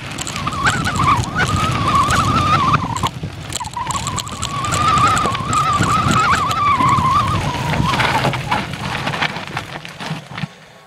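Mountain bike riding on a trail: wind on the microphone and trail rumble, with rattling clicks and a high, wavering whine over most of it that breaks off briefly about three seconds in. The whine dies away near the end and the rumble drops off.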